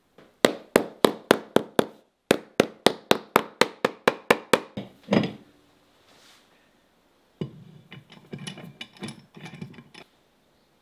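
A shoemaker's hammer striking in quick, even strokes, about four a second: a run of six, a short break, then ten more ending in a heavier blow. After a pause comes softer scraping and creaking as a cast-iron screw press is tightened down onto the shoe's last.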